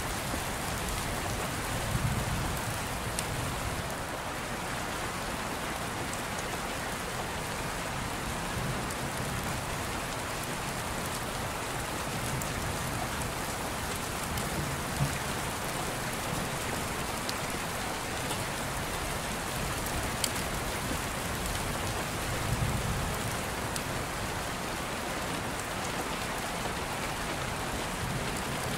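Steady rain on a surface, an even hiss with faint patter. Two brief low rumbles come through, about two seconds in and again some twenty seconds later.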